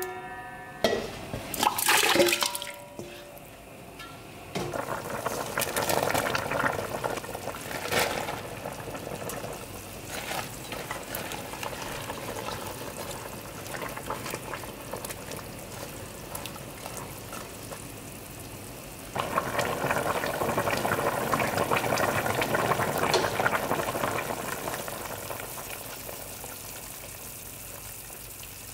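Dark soy-based liquid bubbling and simmering in an aluminium pot, with a wooden spoon stirring through green chili peppers and garlic cloves. A few sharp knocks come about one to two seconds in, and the bubbling and stirring get louder partway through.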